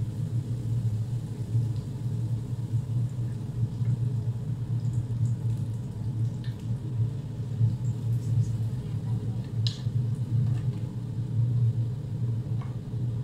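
A steady low rumble with a few faint clicks over it.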